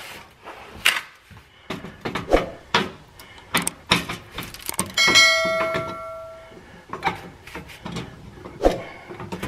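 Screwdriver clicking and scraping on the screws and clips of a car's engine undershield, in scattered sharp clicks and knocks. About five seconds in, a bright bell-like chime rings out and fades over a second or so.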